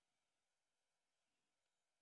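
Near silence: only a faint even hiss.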